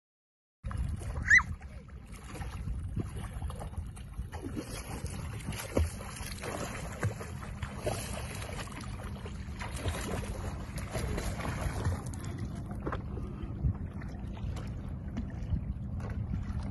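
Wind buffeting the microphone over choppy lake water, with small splashes and lapping throughout. About a second in there is a brief loud knock with a short high rising squeak.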